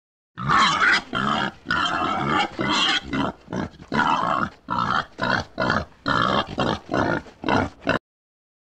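Wild boar calling: a rapid string of short and longer calls that starts about half a second in and cuts off suddenly near the end.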